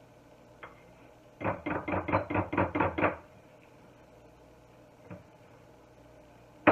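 A utensil knocking against a glass mixing bowl: a quick run of about nine knocks, about five a second. A few lone knocks follow, ending in one sharp, loud knock.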